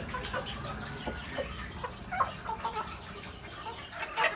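A flock of native chickens clucking with short, scattered calls while they peck at their feed, with a louder burst of sound near the end.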